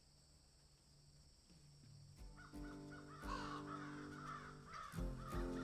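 Crows cawing in short repeated calls, with music coming in about two seconds in; the first two seconds are faint with only a low hum.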